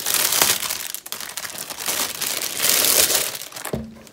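Crinkly clear plastic wrapping bag rustling and crackling as a zippered sorting case is pulled out of it, loudest about three seconds in and dying away shortly before the end.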